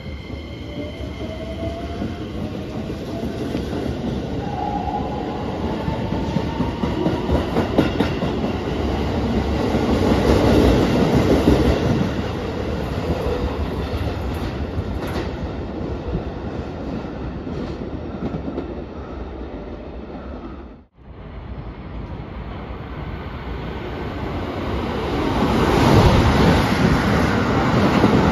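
Keikyu electric trains at a station: a train moving off with its motor whine rising slowly in pitch as it gathers speed, over the rumble and clatter of its wheels on the rails. After a break about two-thirds of the way in, another train passing through, growing louder to its loudest near the end.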